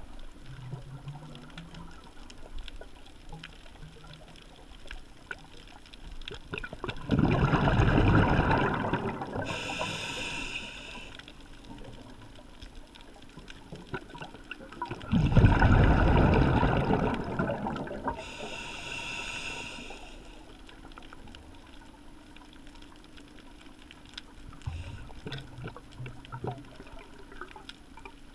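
Scuba diver breathing through a regulator, heard underwater: twice a loud rush of exhaled bubbles lasting two to three seconds, each followed about a second later by a shorter hissing inhale.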